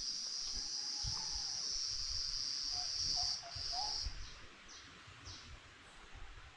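A cicada's steady high buzz, which breaks into a few pulses and stops about four seconds in. Faint short high notes repeat every second or so afterwards.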